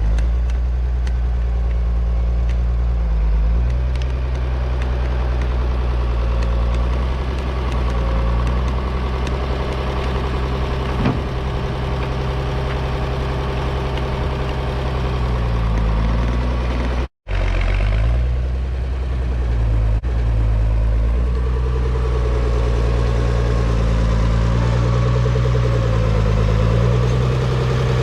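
Farmall 806 tractor's diesel engine running, its speed rising and falling several times. The sound is briefly cut off about 17 seconds in.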